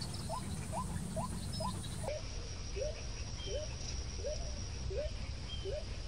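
White-breasted waterhen calling: a rapid, even series of short rising notes, about two a second, the notes dropping lower about two seconds in.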